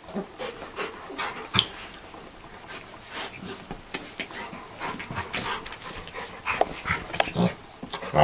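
A Rottweiler and a beagle puppy play-wrestling: scattered, irregular breathing and mouthing noises from the two dogs, with no barking.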